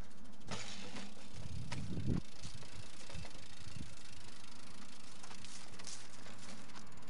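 BMX bike being wheeled along by a rider on foot, with rattles and scuffs and a cluster of low thumps about two seconds in, over a steady background hiss.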